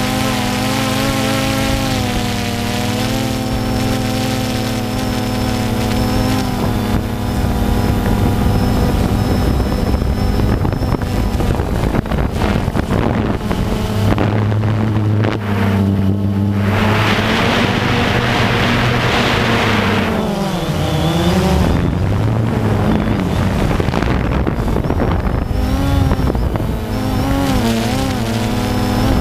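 DJI Phantom quadcopter's motors and propellers buzzing in flight, heard up close from the camera mounted on the drone. The rotors' pitches shift up and down and beat against each other as it manoeuvres, with a stretch of rushing noise a little past halfway.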